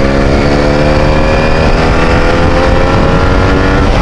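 Benelli TNT 300 parallel-twin with an aftermarket SC Project exhaust, under way and accelerating in gear. The exhaust note climbs steadily in pitch and is loud.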